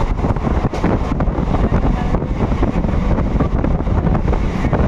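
Express passenger train in motion, heard from on board: the steady running noise of wheels and coaches with rapid rattling, and wind buffeting the microphone.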